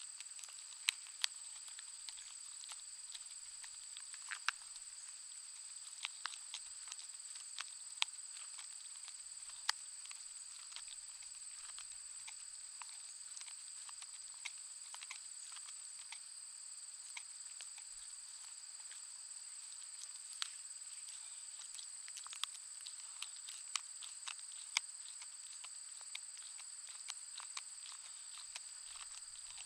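A Schnauzer-pug mix dog gnawing a bone: irregular sharp cracks and crunches, a few much louder than the rest. A steady high-pitched whine runs underneath.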